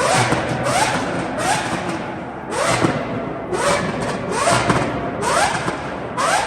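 Sports car engines revved in quick repeated throttle blips, about one a second. Each blip rises in pitch and ends in a sharp crackling burst.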